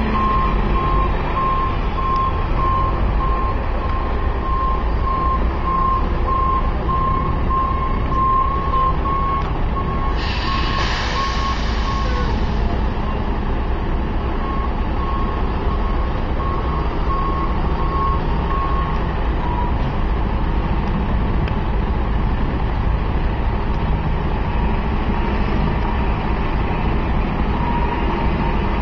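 A construction truck's reversing alarm beeps at one steady pitch over the low rumble of a heavy diesel engine, then stops about two-thirds of the way in. About ten seconds in, a burst of hissing air lasts for around two seconds.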